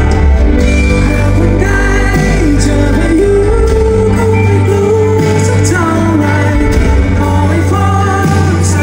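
A live pop song with a male singer and full band: one continuous sung line over steady bass.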